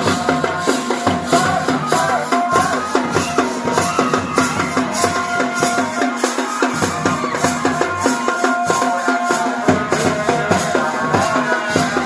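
Pahari folk music of a Tandi geet: drums beat a fast, steady rhythm under a held melody line, without a break.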